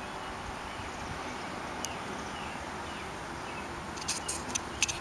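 Steady background hiss with scattered sharp clicks, then a quick run of crunching footsteps on debris about four seconds in.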